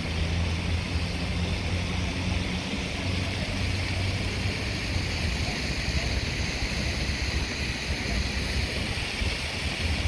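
Steady outdoor city ambience: a continuous low rumble with an even hiss above it, and no single sound standing out.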